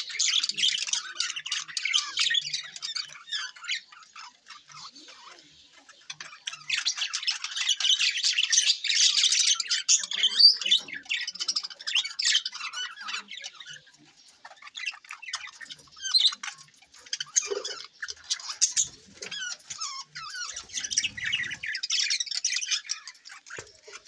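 A flock of budgerigars chattering and squawking, a dense, rapid, high-pitched warble that comes in busy bouts with short lulls between them.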